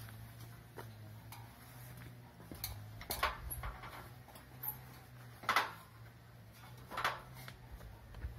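Aluminium ladder knocking and clicking as a person climbs its rungs: a few separate sharp knocks a second or two apart, over a faint steady low hum.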